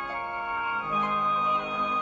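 Background music: sustained organ-like keyboard chords, changing to a new chord about a second in.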